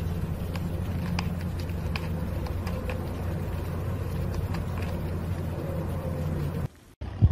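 A steady low mechanical hum with a few faint ticks over it; it cuts off near the end and a single sharp pop follows.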